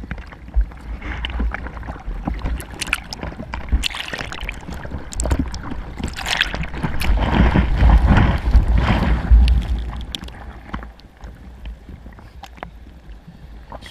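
Seawater sloshing and splashing around a GoPro at water level, with a low rumble of wind on the microphone. The splashing grows loudest about seven to ten seconds in, then settles.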